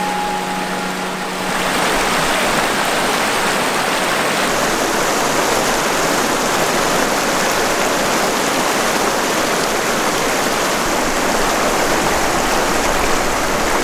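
Mountain creek water rushing and splashing over rocks in a loud, steady rush.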